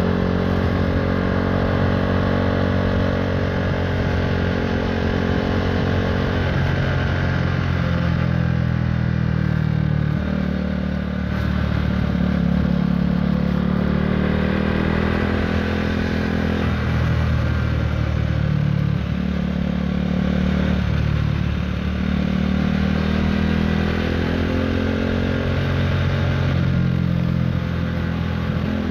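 KTM Duke 390's single-cylinder engine through an Akrapovic Racing Line exhaust, heard from the rider's seat while riding. Its note rises and falls with the throttle, with brief dips every few seconds.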